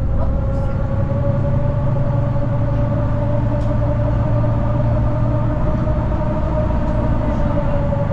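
City bus heard from inside the cabin while driving: a deep, steady engine and road rumble with a drivetrain whine over it, the whine rising slightly at first and then holding steady.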